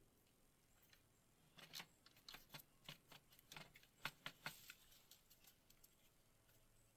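Intake manifold being worked down onto the 3.6L V6: a run of light clicks and knocks, about a dozen in three seconds, as it bumps against parts while being seated.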